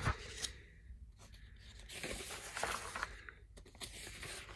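Paper pages of a three-ring binder being turned by hand, with soft rustles and light clicks and two short quiet gaps between page turns.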